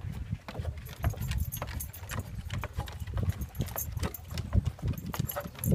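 Footsteps on wooden stairs: irregular knocks and thuds, several a second, over a low rumble.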